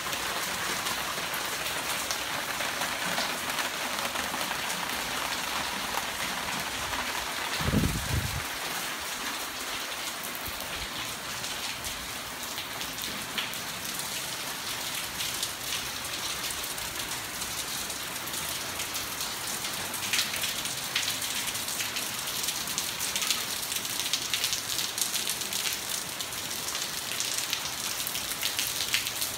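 Steady rain falling on foliage and stone paving, with sharper close drops spattering more often from about twenty seconds in. A brief low thump about eight seconds in.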